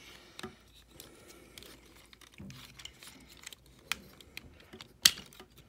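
Plastic parts of a Transformers Studio Series 66 Overload figure being handled and folded: small scattered clicks and rattles, with one sharper, louder click about five seconds in.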